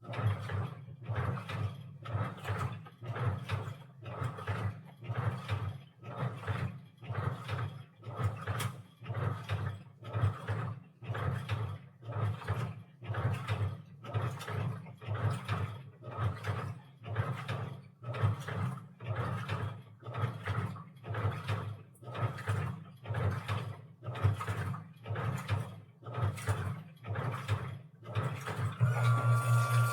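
Washing machine running a wash cycle: the drum turning and the laundry sloshing in a steady rhythm, about one stroke a second. Near the end a steady hum with a faint whine sets in and the strokes come faster.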